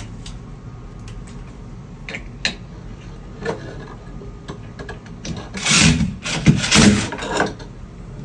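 Scattered light clicks and taps from handling doorbell mounting hardware, with a louder stretch of rubbing and clatter about six to seven seconds in.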